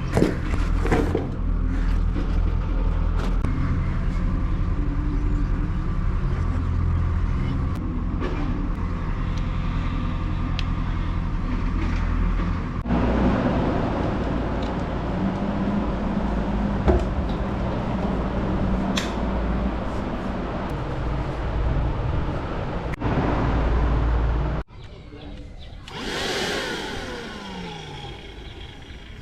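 Lyrovo LY3301 handheld car vacuum cleaner running steadily. The motor cuts off near the end, and a quieter, changing sound follows.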